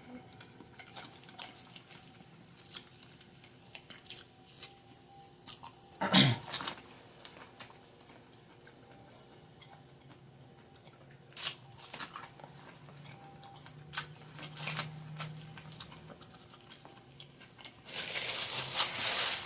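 Close-miked mukbang eating of a seafood boil: wet chewing and smacking with scattered sharp clicks and crunches. There is a brief vocal sound about six seconds in and a loud rustle near the end.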